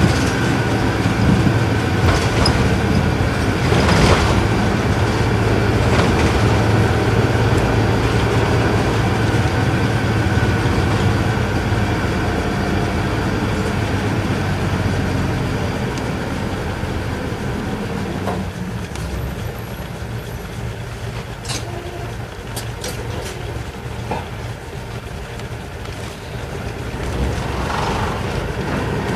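Isuzu Erga Mio bus's inline-six diesel engine running under way, heard from inside the passenger cabin along with road noise. About two-thirds of the way through, the engine note falls away and stays quieter for several seconds, then picks up again near the end.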